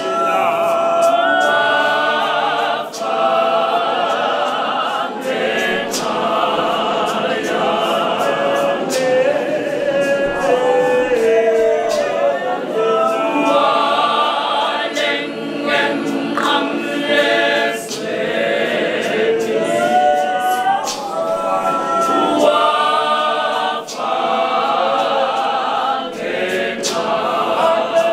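A group of women singing a church hymn unaccompanied, a cappella, their voices together in a choir.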